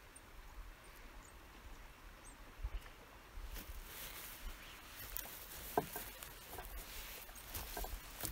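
Spinning reel being cranked to retrieve a small metal spinner: faint scratchy whirring in stretches, with a few light clicks.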